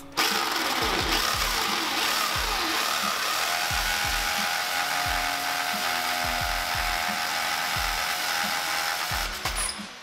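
Corded power drill with a masonry bit boring into a concrete block wall at full speed, drilling a hole for a Tapcon masonry screw. It is loud and steady, with a steady whine coming in about halfway through, and it stops shortly before the end.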